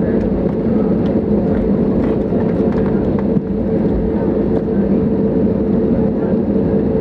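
Cabin noise inside an Airbus A320neo taxiing: a steady hum from its CFM LEAP-1A engines at low power, with two steady tones over a low rumble from the wheels rolling on the taxiway.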